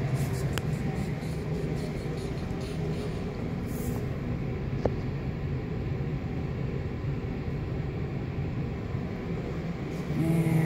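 Steady low background hum, with a few faint clicks and knocks of the phone being handled and moved about.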